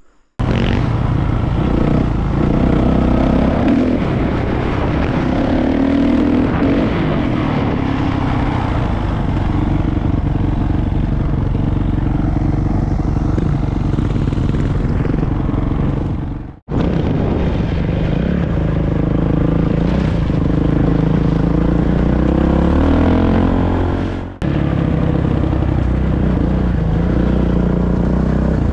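Kawasaki KX450 dirt bike's single-cylinder four-stroke engine running under throttle from the rider's helmet position, its pitch rising and falling as it is ridden. The sound breaks off abruptly twice, about 17 and 24 seconds in.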